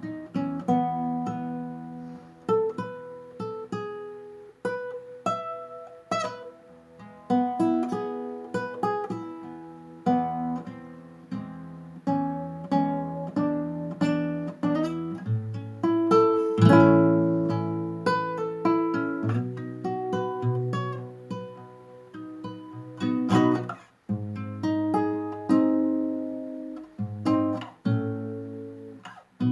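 Acoustic guitar music: plucked notes and gently strummed chords in a slow, calm melody, each note decaying before the next.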